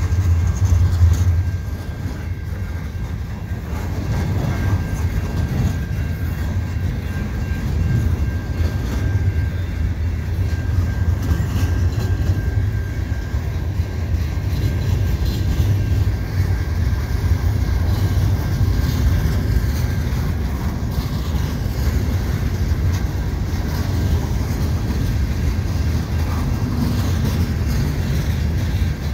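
Freight cars of a slow-moving train rolling past: a steady low rumble of steel wheels on the rails, with a faint steady high tone above it.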